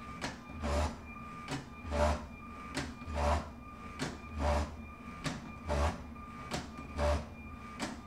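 LEGO SPIKE Prime robot's motors whirring as it drives forward and back over and over, about once every 1.25 seconds, with clicks and knocks as its bumper pushes the Step Counter mission model.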